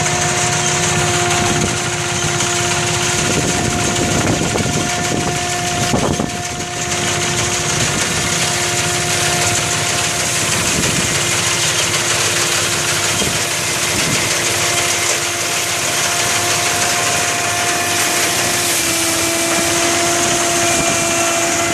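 Mini rice thresher running steadily, its small engine and threshing drum giving a constant hum. There is a brief knock about six seconds in.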